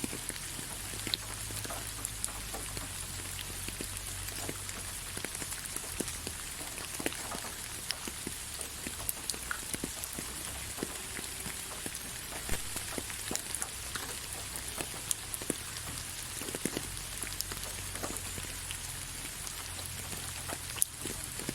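Steady rain falling on leaves: a continuous hiss with many separate drops pattering close by.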